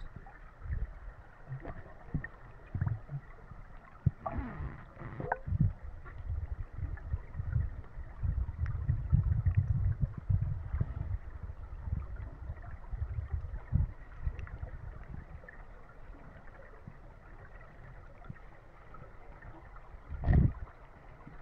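Muffled underwater noise picked up by a submerged action camera: a low rumble with irregular dull knocks from water moving around the camera and the swimmer, and a louder gush near the end.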